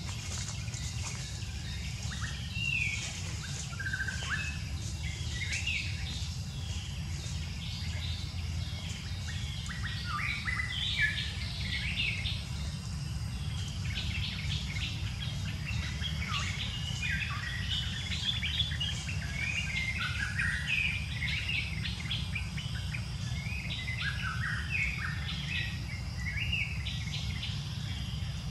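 Many short bird chirps and calls overlapping throughout, over a steady low rumble and a thin, steady high insect drone.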